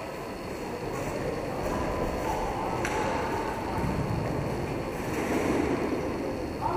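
Roller hockey play on a rink floor: a steady rumble of skate wheels rolling, with a few faint clacks of stick on ball and faint distant voices.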